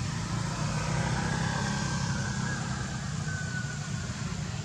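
A steady low engine rumble. Two faint, thin high tones come in over it, one from about a second in and a shorter one past three seconds.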